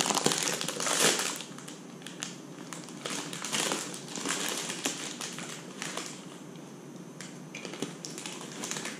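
Dry, irregular crunching and crinkling in short bursts, loudest in the first second: a crisp insect being nibbled and chewed.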